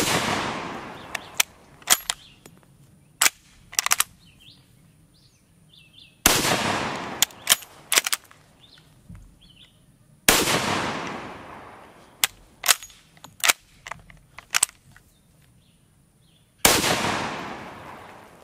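Four shots from an 1886 Lebel bolt-action rifle in 8mm Lebel, one right at the start and then about 6, 10 and 17 seconds in, each echoing away over about two seconds. Between shots come sharp metallic clacks of the bolt being worked to chamber the next round from the tubular magazine.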